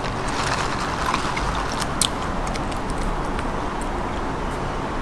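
Steady outdoor background noise, a low rumble and hiss, with a few light clicks and taps; the sharpest click comes about two seconds in.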